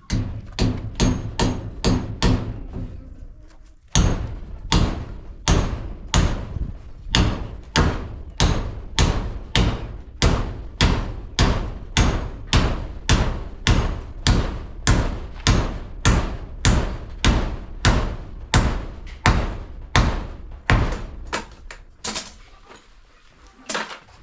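Hammer driving a nail: a quick run of blows, a short pause, then steady strikes about two a second for over fifteen seconds, ending with a few spaced taps near the end.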